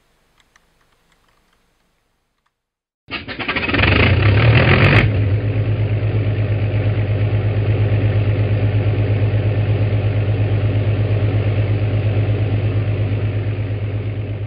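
An engine starting: it catches about three seconds in, revs briefly for about two seconds, then settles into a steady, evenly pulsing idle that fades near the end.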